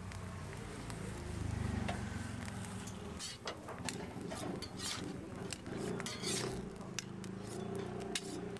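Metal spatula and tongs clacking and scraping on a flat steel griddle, a run of sharp clicks starting about three seconds in, over a steady low hum.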